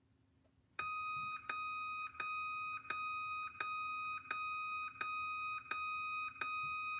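System Sensor fire alarm horn sounding its 1200 Hz Interrupted tone. A steady high tone, slightly lower than the 2400 Hz setting, starts about a second in and is switched off briefly about every 0.7 s, with a click at each break.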